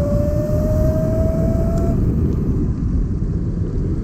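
Vespa scooter on the move: a dense low rumble of wind on the microphone, with a steady whine that rises slightly in pitch and stops about two seconds in.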